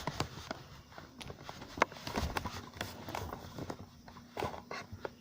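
Irregular clicks and knocks of small objects being handled and moved about while rummaging for scissors, with one sharper knock a little under two seconds in.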